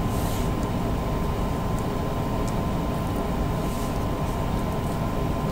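Steady background hum and hiss of room noise, with a thin constant tone running through it and a few faint ticks.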